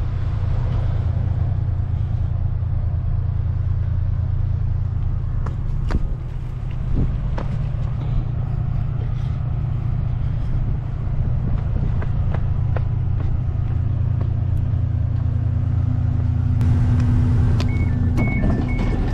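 Diesel train running with a steady, heavy low rumble and scattered clicks. Near the end a repeating two-note beep starts.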